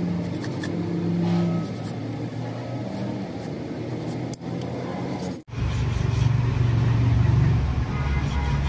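Flat hand file rasping over the jaws of old rusty steel pliers on an anvil. A little over halfway through the sound cuts off abruptly and a steady low drone takes over.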